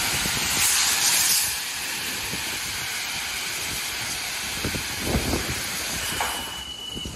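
Ryko Select-A-Wash automatic car wash spraying high-pressure water over a pickup truck: a steady hiss of spray, loudest in the first second and a half, falling off near the end. A thin high tone sounds over the last second.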